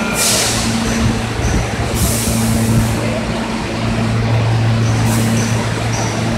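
New York subway train standing at the platform: a steady low electric hum, with three bursts of hissing at about the start, two seconds in and five seconds in.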